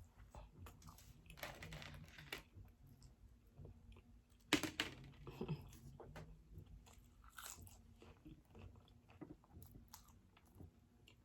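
Close-up eating sounds: a person biting and chewing food with mouth noises, with a louder crunchy bite about four and a half seconds in.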